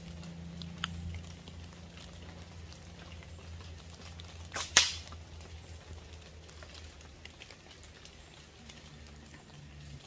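A slingshot shot: one sharp snap of the rubber bands and pouch on release, about halfway through, over a faint low steady hum.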